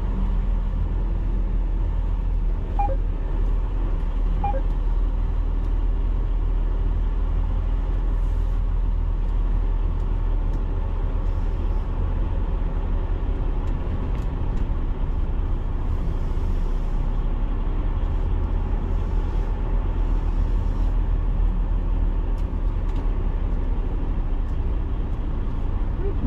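Semi-truck's diesel engine running steadily at low speed, its sound mostly low-pitched and even.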